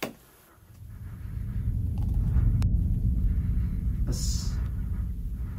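A low rumble that swells up over the first two seconds and then holds steady. A click comes at the very start and a short hiss about four seconds in.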